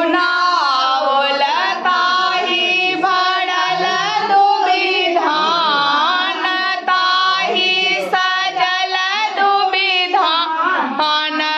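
A group of women singing a song together, several voices at once, loud and continuous.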